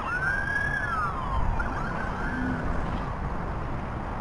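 Emergency vehicle siren wailing: its pitch holds high, slides down, then warbles quickly about two seconds in before fading out. A steady low rumble runs underneath.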